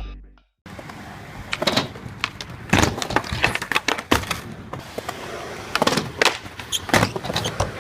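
Skateboard wheels rolling over pavement with a steady rumble, broken by irregular clacks and knocks as the board rides over cracks and bumps.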